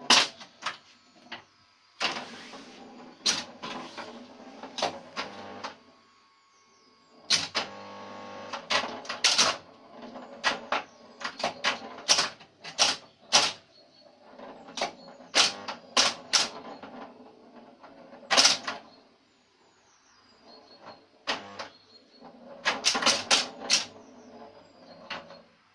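Bally See Saw (1970) electromechanical pinball machine in play: irregular clacks and snaps from flippers, bumpers, relays and stepping score reels, with no chime bells. A brief steady hum comes in about seven seconds in.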